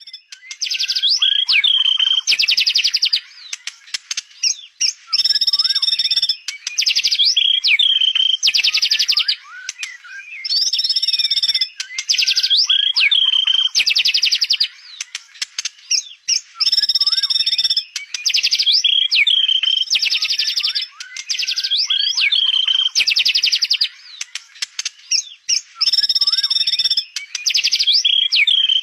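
White-rumped shama (murai batu) singing loudly and continuously: rich whistles, fast trills and rattling notes, the same phrase sequence repeating about every four seconds.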